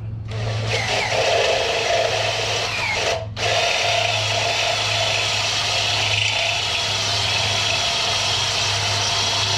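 Electric drill running under load, boring out a hole in a metal engine-mount bracket to make it bigger. It stops briefly about three seconds in, then runs on steadily with a high whine.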